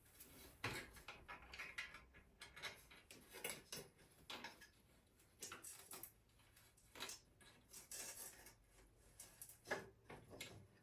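Faint, irregular metallic clicks and taps of a wrench and bolts as a rear rack's legs are bolted onto an e-bike frame.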